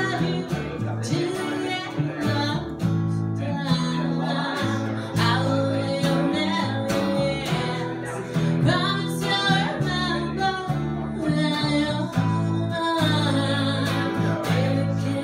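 Live acoustic duo: a woman singing to her own strummed acoustic guitar, with an upright double bass playing low sustained notes underneath.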